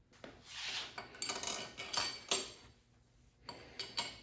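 Small metal parts and tools clinking and scraping as they are handled: a soft scrape, a few sharp clinks, a short pause, then more clinks near the end.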